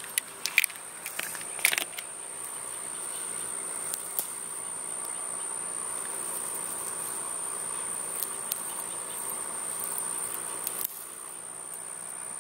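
A steady, high-pitched insect trill, with a few sharp clicks in the first two seconds.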